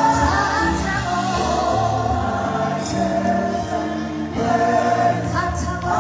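Live gospel music: a woman singing lead into a microphone with choir voices and a band beneath, steady bass notes under sustained sung lines.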